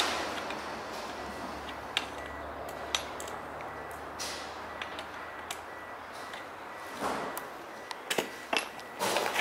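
Scattered clicks, knocks and rustles of gloved hands handling and working on a chainsaw's parts, with the engine off. A few are single sharp clicks, and near the end they come in short rustling bursts.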